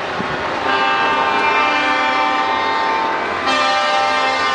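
Truck air horn sounding a loud, held multi-tone chord that starts just under a second in and switches to a different chord about three and a half seconds in.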